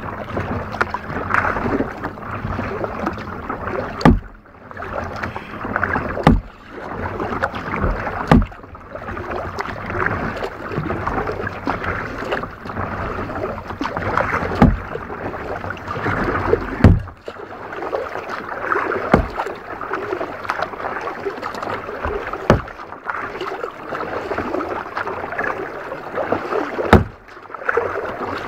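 Kayak being paddled: a steady wash of water splashing and sloshing around the hull, with a sharp knock every two to four seconds.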